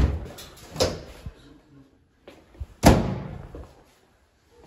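Oven door slamming shut: a bang at the start, another just under a second later, and the loudest bang about three seconds in, ringing out briefly.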